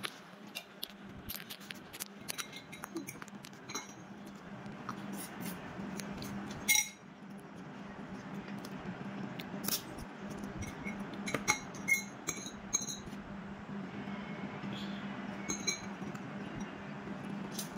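A metal fork clinking and scraping against a ceramic plate during a meal, in scattered light clicks, with one louder knock about seven seconds in. A steady low hum runs underneath.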